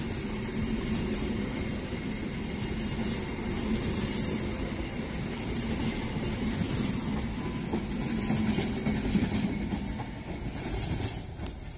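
KAI Papandayan passenger train running past, with a steady rumble and hum from the train and occasional wheel clacks over the rails. It fades near the end as the train draws away.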